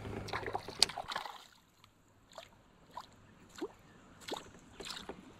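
Soft handling rustles and a sharp click, then small water plinks and drips at intervals of about half a second to a second.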